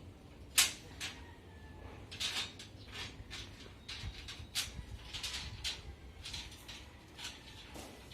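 Irregular sharp metallic clicks and knocks, about a dozen, from steel reinforcing bars and tie wire being handled during rebar work. The loudest comes about half a second in.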